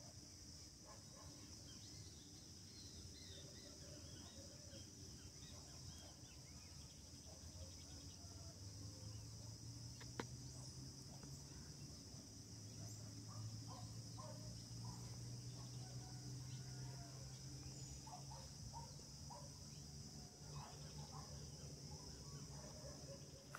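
Faint, steady chorus of crickets, with scattered short calls from other animals over it and one sharp click about ten seconds in.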